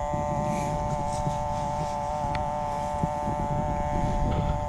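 A metal detector sounding a steady electronic two-note tone, held without a break, over low rustling and wind-like noise.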